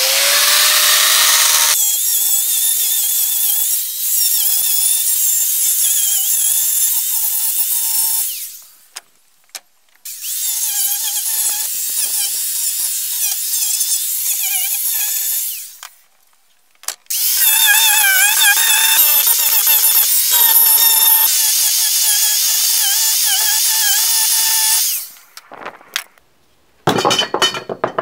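Corded angle grinder spinning up, then grinding off protruding nail ends on pallet boards in three long runs of about eight, six and eight seconds with short pauses between, its whine wavering under load. A few sharp knocks near the end.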